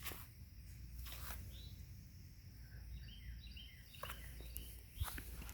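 Faint outdoor ambience: scattered short bird chirps over a steady low rumble and high hiss, with a few soft clicks.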